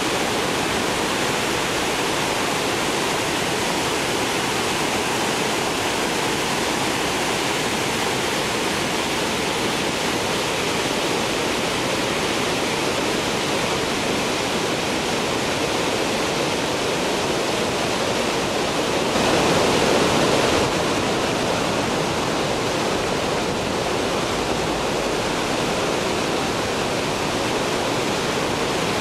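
Reservoir water overflowing the crest of a 48.75 m concrete dam and falling as a broad curtain onto rocks in the gorge below: a steady rush of falling water, briefly louder about two-thirds of the way through.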